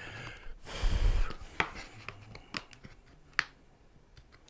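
Thin plastic body part of a Go-Go folding mobility scooter being handled and worked at a superglued break: a short rubbing rush about a second in, then a few sharp plastic clicks as the glued joint fails to hold.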